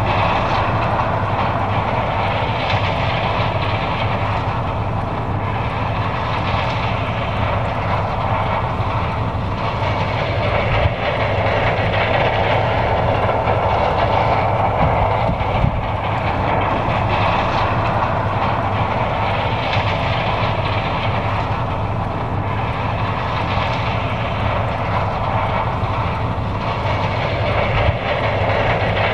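John Deere 9550 combine harvester running under load while harvesting corn: a steady mechanical rumble and rattle over a low engine hum, swelling and easing every few seconds.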